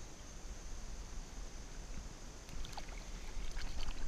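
Small water splashes and drips as hands lower a northern pike into the creek beside a kayak and let it go. The splashes start about two and a half seconds in.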